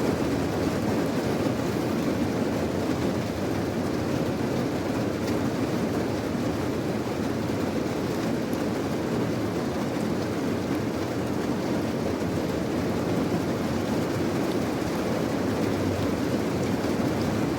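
Steady rain, an even unbroken rushing noise, heaviest in the low range.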